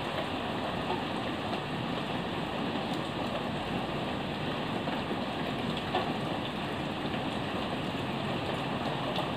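Heavy rain falling steadily: an even hiss with a few louder drips, one standing out about six seconds in.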